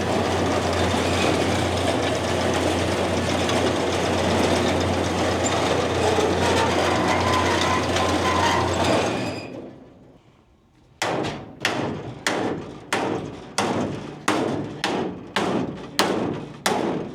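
A machine runs with a steady, loud noise and a low hum, then winds down after about nine seconds. After a short pause comes a run of steady, evenly spaced hammer blows, about one and a half a second.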